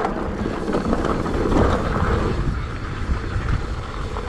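Mountain bike rolling along a dry, rocky dirt singletrack: tyres crunching over loose gravel with wind rushing on the camera microphone, a steady noise that swells a little about halfway through.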